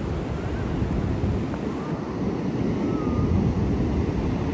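Ocean surf breaking on a beach, with wind buffeting the microphone, as a steady dense noise. A few faint short chirps sound above it.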